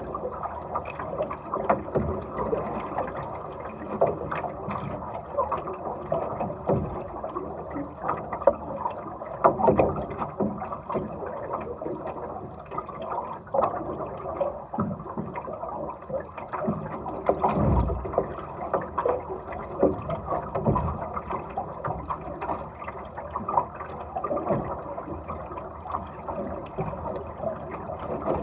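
Water rushing and splashing along the hull of a small sailing dinghy under way, with irregular slaps and knocks as it meets the waves, a few louder ones along the way.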